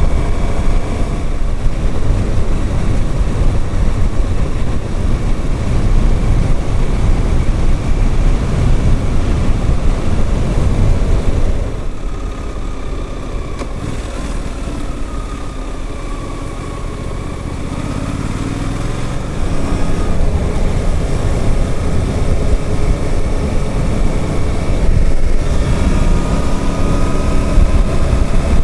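Wind noise on the microphone over the Suzuki GSX-8S's parallel-twin engine while riding. About twelve seconds in the wind drops for several seconds and the engine note comes through more plainly, rising as the bike speeds up again. It rises once more near the end.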